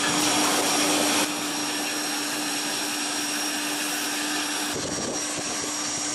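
Steady turbine whine and rush of a parked twin-jet airliner, with a fixed high whistle over a lower hum; it drops a little in level about a second in.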